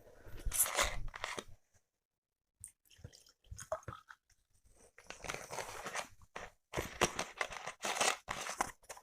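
Chewing and wet mouth sounds close to the microphone, in irregular bursts. There is a short pause about two seconds in, then denser chewing from about five seconds on.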